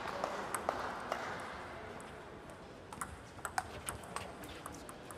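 Table tennis balls clicking off rackets and the table: a string of sharp, irregular pocks, bunched together again about three seconds in.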